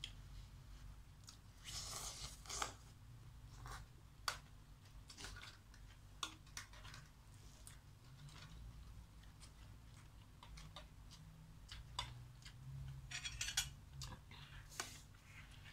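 Close-up eating sounds of noodles being chewed, with scattered clicks and scrapes of a metal fork and spoon against a steel pot and a plastic container. Two short bursts of eating noise stand out, about two seconds in and again near the end.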